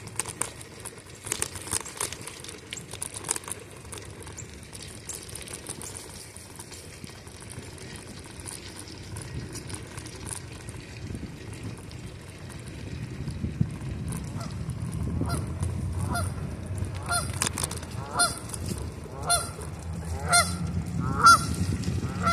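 Geese honking, a string of short calls about one a second through the second half, growing louder toward the end. Underneath is a low rush of wind and rolling noise from the moving bicycle.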